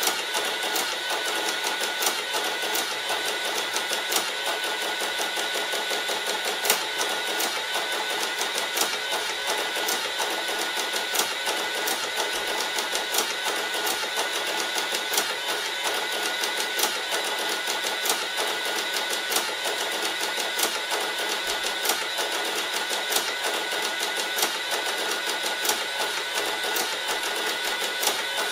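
Sharp XE-A107 cash register's built-in receipt printer printing a long end-of-day Z report, a steady mechanical whirr laced with rapid clicks as the paper feeds out line by line.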